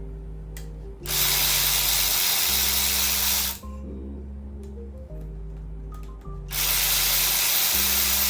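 Cordless power tool motor running in two bursts of about two and a half seconds each, spinning out the 8mm rocker arm bolts on a 5.3 LS engine's cylinder head. Background music plays underneath.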